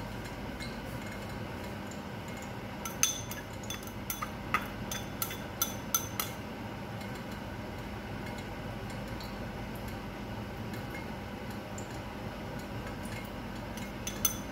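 A kitchen knife clinking and tapping against bowls as sliced onion is scraped onto the beef: about a dozen sharp clinks between about 3 and 6 seconds in, and a couple more near the end. A steady low hum runs underneath.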